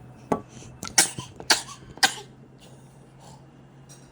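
A baby sneezing in a quick run of short, sharp sneezes, four bursts within about two seconds.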